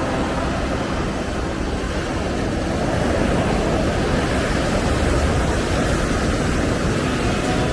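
Steady rushing noise of ocean surf breaking along the shore, with a low rumble underneath.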